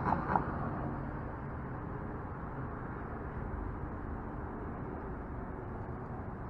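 Steady street background noise: a low, even hum of road traffic, with a short pitched blip right at the start.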